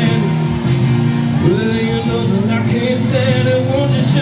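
Live acoustic country music: two acoustic guitars playing together while a man sings the melody.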